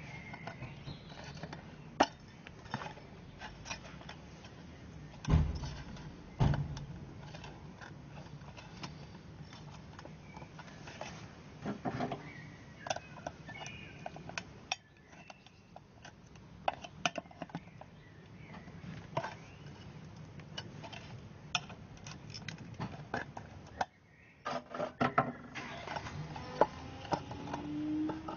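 Handling sounds of a metal muffin tin and cured orgonite resin castings being worked free of it: scattered clicks, taps and scrapes, with two heavier thumps about five and six seconds in.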